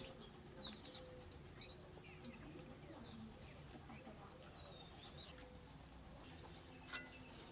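Small birds chirping faintly now and then over a quiet background, with one soft click near the end.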